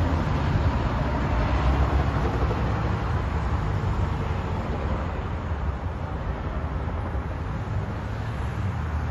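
Helicopter flying overhead, its low rotor beat and engine sound steady, then slowly fading as it moves away.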